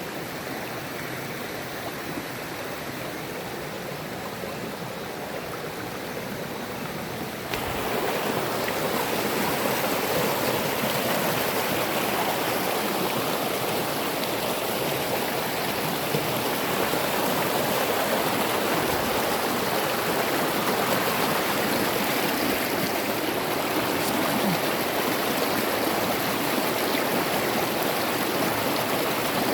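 Fast-flowing river water rushing steadily, growing suddenly louder about seven seconds in.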